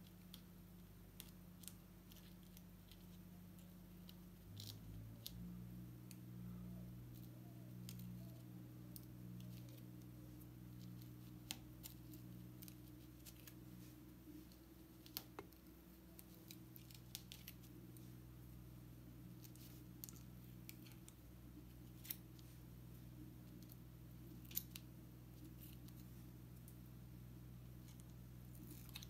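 Faint scratchy clicks and ticks of fingernails picking at and peeling the paper backing off an adhesive sand-art board, scattered irregularly over a steady low hum.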